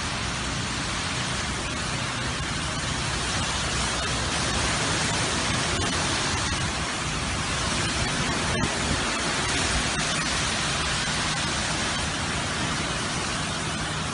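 Hurricane wind driving heavy rain: a steady, dense noise of wind and rain.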